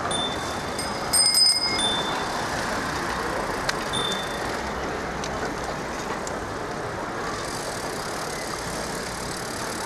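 Bicycle bells ringing, a cluster of rings about a second in and a few single rings before and after, over the steady rush of a moving bicycle ride.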